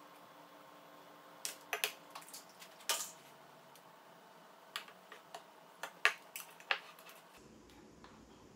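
A mixing utensil clinking against a glass bowl while stirring thick buttermilk pancake batter: scattered, irregular knocks, about a dozen over several seconds, with quiet between them.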